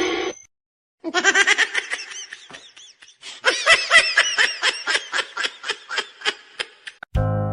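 A person laughing in a long run of rapid, high-pitched bursts. The laughter pauses briefly, starts again louder, and slows to separate gasping bursts toward the end.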